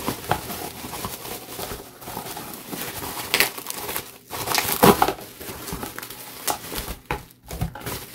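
Bubble wrap and plastic film crinkling and rustling as a wrapped resin planter is unwrapped by hand, with many sharp crackles and a louder stretch a little past halfway.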